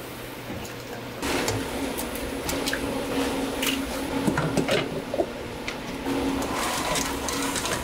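Kitchen handling sounds: a stainless-steel mixer bowl of shredded cabbage clinking and knocking as it is handled and fitted onto a stand mixer, a series of sharp clicks over a steady hum.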